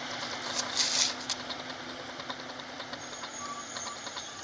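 A Wayne Curb Tender side-loader garbage truck's engine running steadily down the street. A brief hiss comes about a second in.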